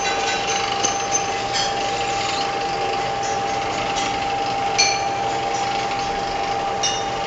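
Plastic cup ring-cutting machine running: a steady motor hum with a few short clicks scattered through it.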